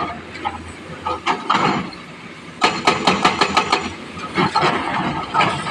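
Sany excavator breaking rock: the engine runs under scattered knocks, with a quick run of about eight sharp strikes, about seven a second, lasting about a second, starting about two and a half seconds in.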